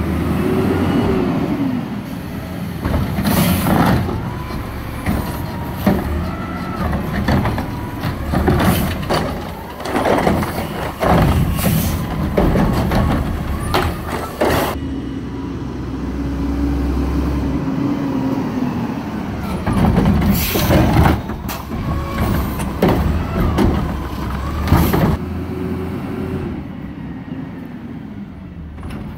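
McNeilus front-loader garbage truck with a Curotto-Can arm collecting carts. The engine revs up and down several times as it drives the hydraulic arm and moves between houses, with repeated sharp air-brake hisses and clanks.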